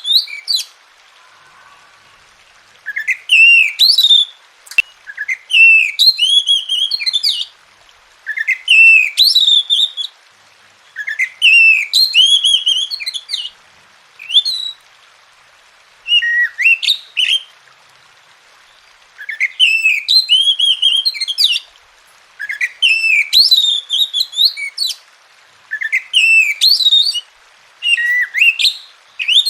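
Oriental magpie-robin (kacer) singing: loud whistled song phrases of a second or two each, with quick pitch glides, repeated about ten times with short pauses between them.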